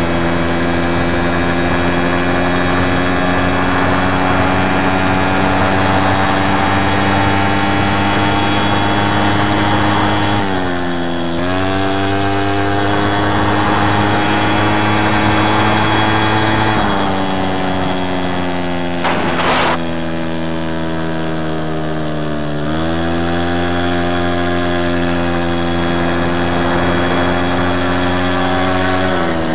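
VéloSolex moped's small single-cylinder two-stroke engine running steadily. Its pitch dips briefly a few times and sags and recovers once, with one sharp click about two-thirds of the way in.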